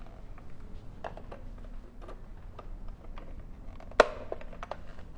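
Light clicks and knocks of a hand mixer and kitchen utensils being handled on a countertop, with one sharp click and a brief ring about four seconds in. The mixer is not running.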